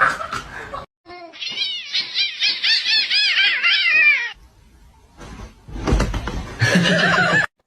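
A cat giving a quick run of short, high chirping meows, each rising and falling in pitch, about four a second for roughly three seconds, then another louder burst of sound near the end.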